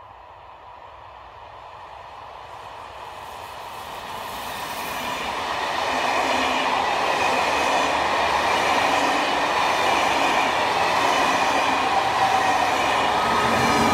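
A TER train of Corail coaches approaching and passing close by: the rail noise swells over the first six seconds, then holds as a loud, steady rumble of wheels rolling on the rails while the coaches go by.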